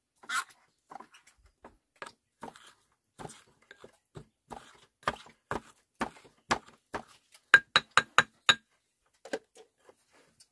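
Knocking or tapping about twice a second, then a quick run of five ringing, clinking strikes about eight seconds in.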